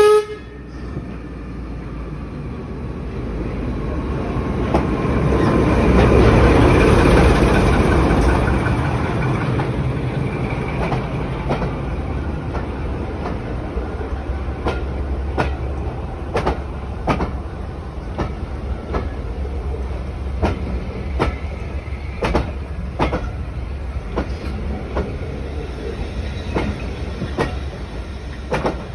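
Class 14 diesel-hydraulic shunter running close by, its engine and rumble building to loudest about six to eight seconds in. After that, steady running noise with sharp clicks about once a second as the wheels pass over rail joints, clickety-clack at low speed.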